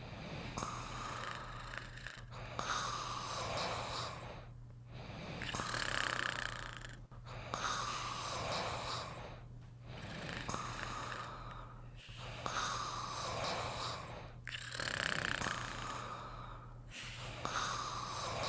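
Snoring in a slow, even rhythm, one breath roughly every two and a half seconds, about eight in all.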